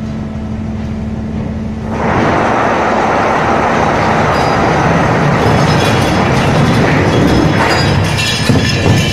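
A trawler's machinery running with a steady hum and low rumble. About two seconds in, a loud rushing noise sets in over it, with a few clinks and knocks near the end.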